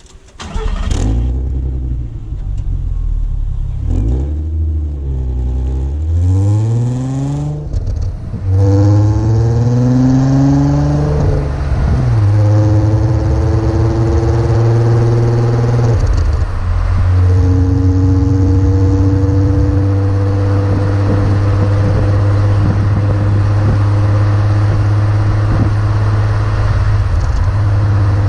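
Stock 2002 VW Golf IV's 2.8 litre VR6 (narrow-angle V6, 24-valve BDE) engine on its original exhaust. It is revved up and down several times in the first ten seconds, then held at a steady speed for the rest, with a brief dip near the middle.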